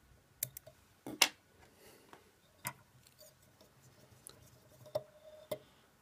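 Small fly-tying scissors snipping off excess material at the hook: a few short sharp clicks, the loudest about a second in, with light handling ticks.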